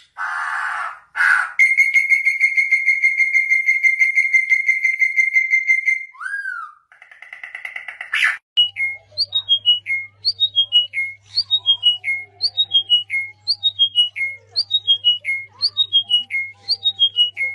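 A bird whistling: one long steady note, then a short buzzy stretch, then a quick falling whistled phrase repeated about twice a second. A low steady hum sits under the repeated phrase.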